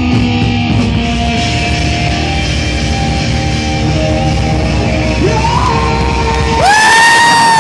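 Live heavy metal band playing: distorted electric guitar over drums, with held notes. Near the end a loud, long high note bends up, holds for about a second and falls away as the low end drops out.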